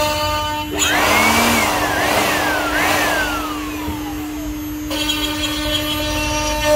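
Electric power tool motor spinning up to a high whine, its pitch dipping twice as if under load, then winding down in a long falling whine. The sound starts and stops abruptly, with a steady low hum underneath.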